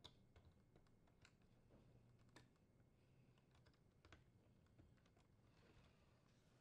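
Near silence, broken by a few faint, scattered plastic clicks and taps as a wire connector is fitted on a dishwasher's detergent dispenser and its wires are handled. The clearest click is right at the start.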